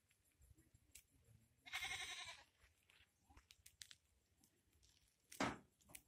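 An animal's single cry, under a second long, about two seconds in, with a bleat-like pitched tone. A short, loud scuffing noise comes near the end.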